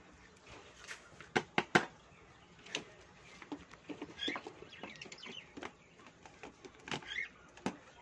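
Scattered sharp clicks, taps and light rattles of feeder cups and a wire bird cage being handled while setting out seed, with the loudest pair of knocks about one and a half seconds in and two more near the end.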